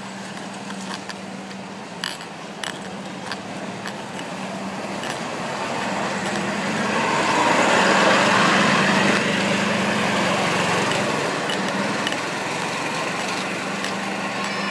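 A motor vehicle passes close by on a rain-wet road, its engine hum under a tyre hiss that swells to a peak about eight seconds in and then fades. Light taps from a necklace pendant knocking against the recording device come in the first few seconds and again near the end.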